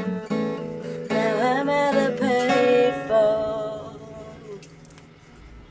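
Acoustic guitar strummed, then a voice sings a melodic line over the ringing chords from about a second in. The music fades out over the last second or so.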